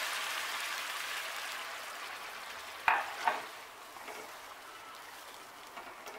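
Water poured into a hot wok of frying rice and vegetables, sizzling and fading away while a wooden spatula stirs the mixture, with a sharp knock of the spatula on the pan about three seconds in.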